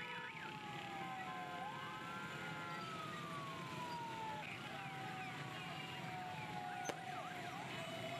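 A wailing siren, sliding slowly down in pitch, swinging back up once about two seconds in, then falling away again. Underneath is the steady din of a large procession of motorcycles, with a few short quick chirps near the start and end and a sharp click about seven seconds in.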